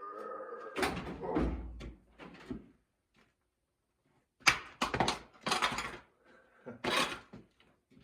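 Parts being handled and set down: a brief squeaky tone at the start, then knocks, clicks and rustles in a few clusters, with one low thump about one and a half seconds in.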